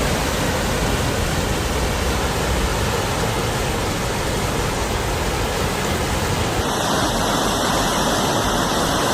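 Floodwater rushing in a loud, steady torrent. The sound changes abruptly about seven seconds in.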